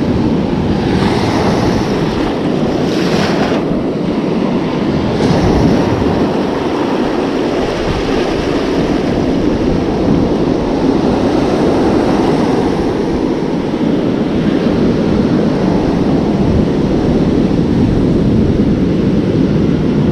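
Ocean surf breaking and washing up the sand close to the microphone, a steady loud rush of water, with wind buffeting the microphone.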